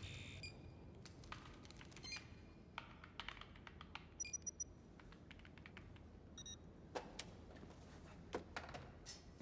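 Faint, scattered clicks and taps, with a short high electronic beep about four seconds in and another a couple of seconds later.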